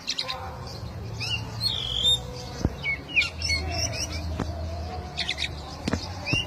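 Oriental magpie-robin (kacer) calling: bursts of short whistled, slurred notes mixed with harsh scratchy chatter, coming in phrases every second or two. A few sharp clicks and a low steady hum sit underneath.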